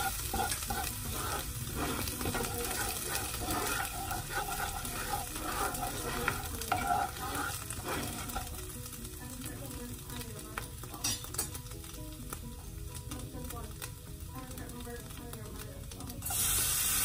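Wooden spoon stirring and scraping garlic and ground spices in a little water in a nonstick frying pan, over a light sizzle. The strokes stop about halfway through and the sizzle goes on more quietly. Near the end, a louder steady hiss starts suddenly.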